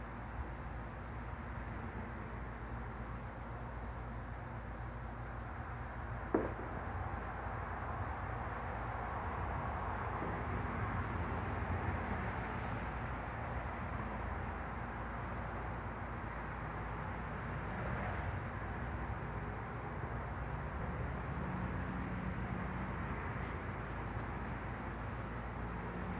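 Steady outdoor background hiss with a faint, evenly repeating high chirp of insects, likely crickets, throughout. A single sharp click sounds about six seconds in.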